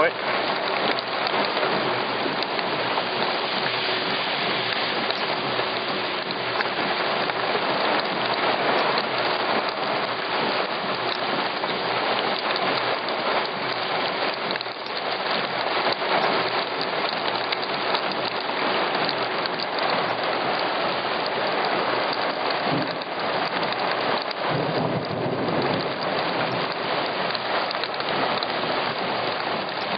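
Heavy thunderstorm downpour of rain mixed with small hail, a dense steady hiss of water falling on flooded pavement. A low rumble of thunder comes in about three-quarters of the way through.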